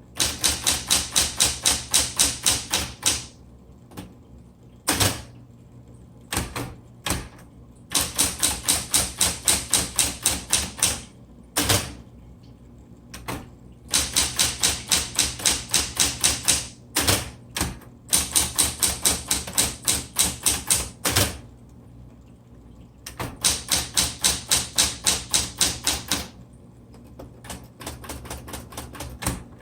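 Typing on a 1970s Smith Corona Coronet Automatic 12 electric typewriter: fast runs of sharp key strikes, about six or seven a second, in bursts of two to three seconds with short pauses and a few single heavier strikes between them, over the steady hum of its running motor.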